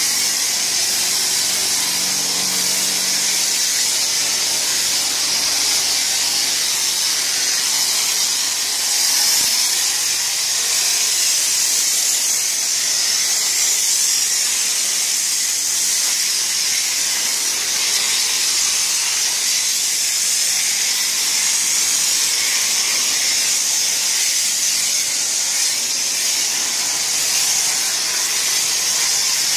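Self-service car wash foam lance spraying active foam onto a car: a steady, unbroken hiss.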